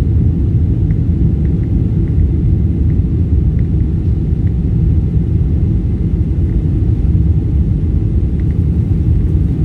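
Steady low rumble of a passenger aircraft in flight, its engine and airflow noise heard inside the cabin.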